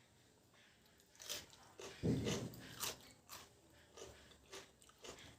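Close-up mouth sounds of a person eating mutton curry and rice: wet chewing with short clicks and lip smacks, and one louder mouth sound about two seconds in.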